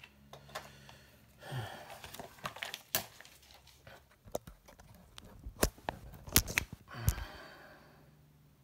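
Paper rustling and a few sharp knocks as a paperback book and a spiral notebook are shuffled, closed and set down on a desk, with more handling bumps and rustling near the end.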